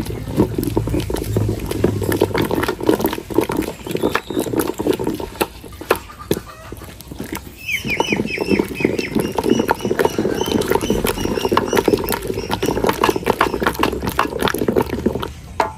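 Repeated knocking and scraping, most likely a pot of porridge being stirred. About halfway through, a bird or fowl calls in a quick run of short rising notes.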